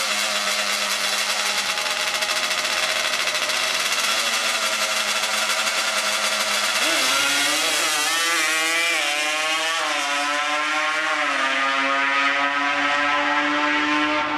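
Drag-racing ATV engine running hard. About seven seconds in its pitch rises, swings up and down several times, then holds steady at a higher pitch.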